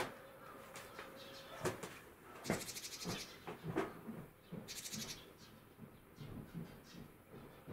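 Eurasian tree sparrows giving short chirps scattered through, with two brief high buzzy rattles, one about two and a half seconds in and one about five seconds in.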